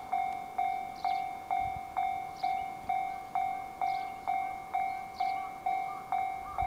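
Japanese railway level-crossing warning bell ringing in a steady repeated clang, about two strikes a second, each ring fading before the next: the crossing's alarm that a train is approaching.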